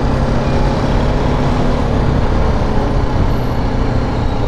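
Motorcycle engine running at a steady pace while being ridden in city traffic, under a steady rush of road and wind noise.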